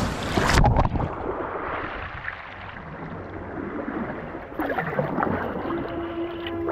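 Kayak paddle strokes splashing water right beside a low-mounted microphone, with water sloshing along the hull and sharp crackles as the bow pushes into thin ice. Near the end a steady tone comes in, the start of background music.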